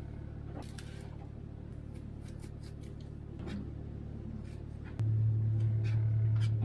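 Knife chopping garlic on a plastic plate: a run of light, irregular taps over a steady low hum. About five seconds in, a much louder low, steady hum switches on abruptly.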